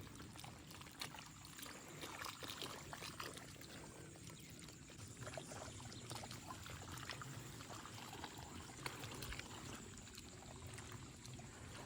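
Faint trickling water, with scattered small ticks and drips.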